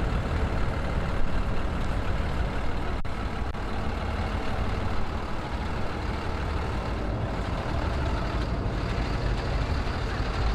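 Steady low rumble of vehicle noise, with one sharp click about three seconds in.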